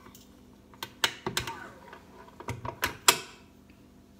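A tilt-head stand mixer being unlocked and its head lifted up off the bowl: a string of sharp clicks and knocks, the loudest about three seconds in.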